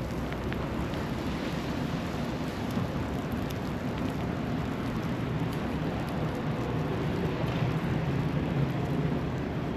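Steady city street noise on snowy streets: a low rumble of traffic with a rain-like hiss, swelling a little about seven seconds in.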